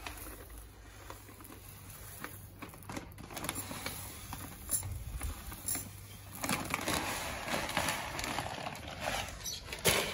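White granules poured from a plastic bag onto potting soil in a plastic barrel planter, with the bag rustling; the pouring is a hiss that grows heavier from about six seconds in. A sharp knock near the end.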